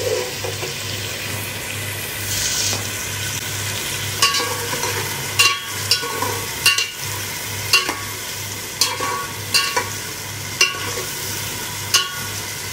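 Sliced onions sizzling as they fry in plenty of hot oil in a steel pot. A spatula stirs them, scraping and clinking against the pot about once a second from about four seconds in.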